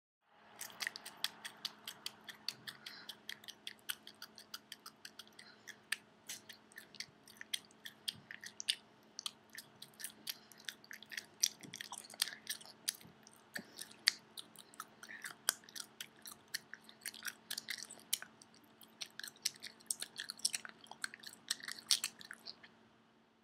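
Gum chewed loudly with the mouth open: wet smacking and clicking, several irregular smacks a second, stopping shortly before the end.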